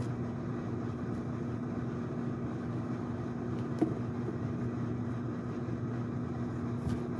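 Steady low hum with a whirring hiss, unchanging throughout, and one faint click about four seconds in.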